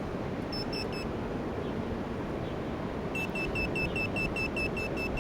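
Two short high electronic beeps about half a second in, then from about three seconds a rapid, even run of high beeps, about five a second. This is the GardSave GS101 bicycle alarm being switched off and the handheld beeper sounding its warning that the alarm has been turned off.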